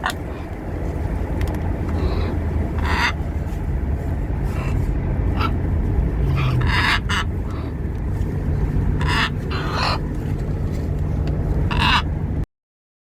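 Pet parrot giving about seven short calls, spaced a second or more apart, over a steady low rumble; the sound cuts off suddenly near the end.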